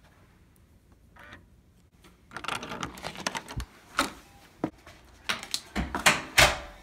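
Hotel room door being unlocked with a key card and opened: a run of latch and handle clicks and rattles starting about two seconds in, then a series of sharp knocks and taps, the loudest near the end.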